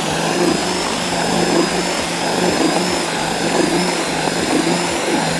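Cordless drill with a paddle mixer running at a steady speed, churning groundbait in a plastic bucket as water is added to wet it. It gives a constant hum with a faint high whine above it.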